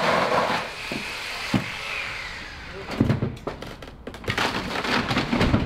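Demolition of a roof overhang on a wood-framed addition. A loud continuous rasping noise eases after the first half-second and fades. Then, from about three seconds in, comes a run of cracks, bangs and clatter as wood framing and metal sheeting break and fall.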